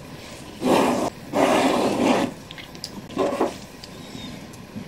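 Gloved hands handling a brass clock movement, lifting its plate and wheels off the posts: three short rough rustling, scraping noises, the longest about a second long.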